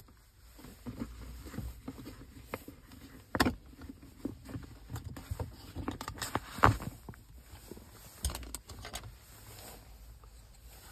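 Plastic gear-shift boot trim surround on a VW Mk5 Golf's centre console being worked loose by hand: a string of irregular plastic clicks and rustles, with two sharper snaps about three and a half and just under seven seconds in as it pops free of its clips.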